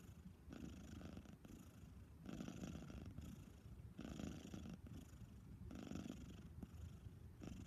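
A pet snoring faintly in its sleep after being spayed: one rasping breath about every 1.7 seconds, each with a fine, rapid flutter.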